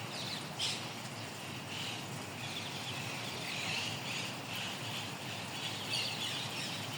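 Birds chirping and calling, a steady run of many short high notes, over a low steady background noise.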